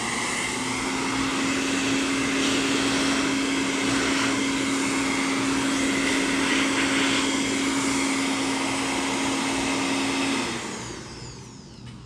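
Hand-held hair dryer blowing steadily, a rush of air with a constant motor hum, then switched off about ten seconds in and winding down.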